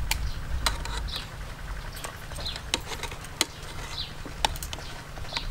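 Metal kitchen tongs clicking against a metal cooking pot as a boiled black chicken is handled in its broth: several sharp, irregular clicks over a low wind rumble, with a few faint short chirps.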